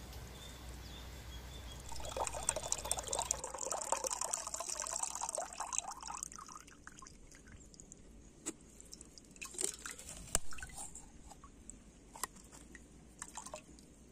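Water pouring for a few seconds, starting about two seconds in, then trailing off into scattered drips and small knocks.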